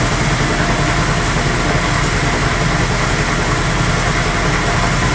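Lagun vertical knee mill running steadily, its end mill cutting a length of zinc-plated steel key stock clamped in the vise.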